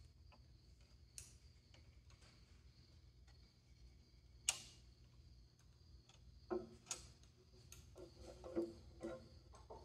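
Faint metallic clicks and knocks as a diesel fuel injection pump is worked by hand into its drive gear on the engine front cover, with one sharp click about halfway through and a run of clunks in the second half. A low steady hum underneath.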